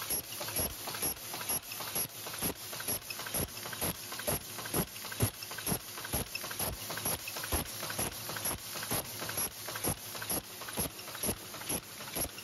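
High-speed paper cup forming machine running, its mechanism clacking in an even rhythm of about two and a half strokes a second, matching its rated speed of about 150 cups a minute.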